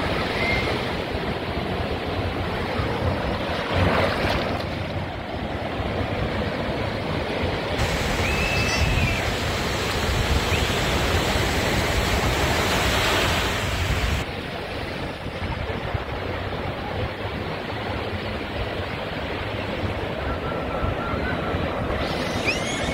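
Ocean surf breaking and washing up the sand at the water's edge: a steady rush of waves that swells to its loudest around the middle and eases off after.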